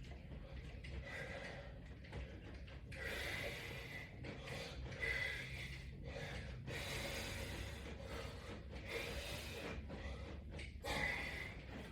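A man breathing hard during a resistance-band workout, with several long breaths about a second each, over a low room hum.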